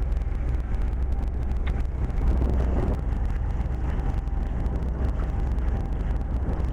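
Gemini catamaran's engine running steadily under way, a low continuous rumble, with wash and wind noise over it.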